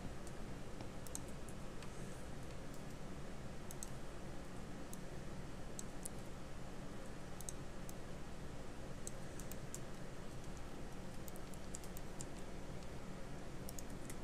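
Computer mouse and keyboard clicks, scattered and irregular, over a steady low background hum.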